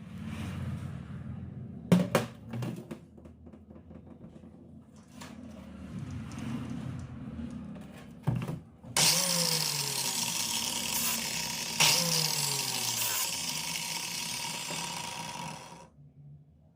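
Small electric power tool, such as a drill or grinder, running at high speed for about seven seconds and cutting off sharply. Its pitch drops twice as it is loaded, as when pressed against metal to smooth a worn rocker arm. Before it come scattered clicks and knocks of parts and tools being handled.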